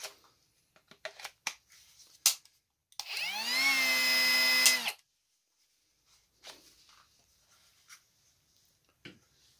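Small cordless angle grinder started about three seconds in. Its motor whines up to speed in about half a second, runs steadily with the disc spinning free for under two seconds, then stops suddenly. Plastic clicks and knocks of the tool being handled come before it, and faint handling sounds after.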